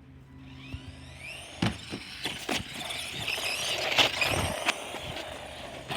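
Battery-powered RC car's electric motor whining, with rising high-pitched glides as it speeds up and several sharp knocks as it bumps along.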